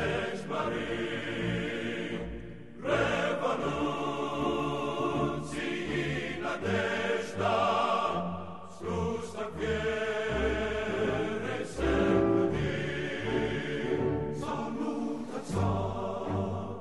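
Choral music: a choir singing in Russian over instrumental backing, a patriotic march-style song.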